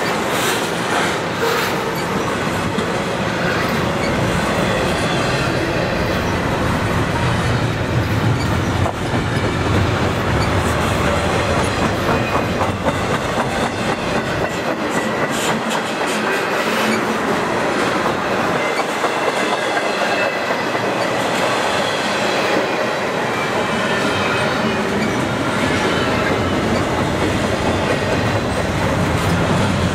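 Double-stack container well cars of an intermodal freight train rolling past: a steady rumble and clatter of steel wheels on the rails, with scattered sharp clicks as the wheels cross rail joints.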